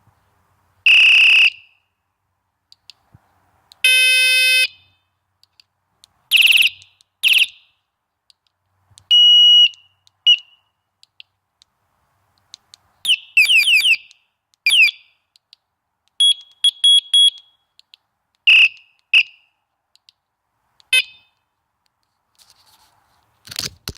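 Multi-tone electronic bike horn sounded in about a dozen short blasts, its button pushed to step through different tones: a steady high beep, a buzzy horn tone, a fast warble and a pulsed beep.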